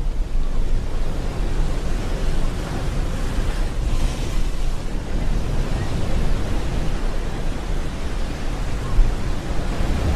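Steady rushing of wind buffeting the microphone, mixed with the wash of water, heaviest in a deep rumble with no break.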